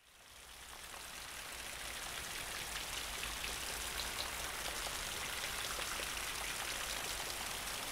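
Steady rain falling, fading in over the first two seconds.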